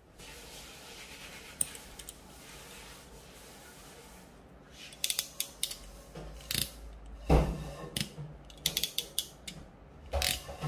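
Crimping pliers clicking and clacking as they close on a metal sleeve over thick monofilament fishing line to crimp it in place. The clicks begin about five seconds in, with one loud clack a couple of seconds later and further clusters of clicks after it.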